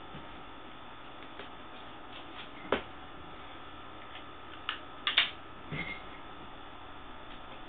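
A few light clicks and knocks from skimmer parts and their packaging being handled, the loudest a quick double knock about five seconds in, over a faint steady hum.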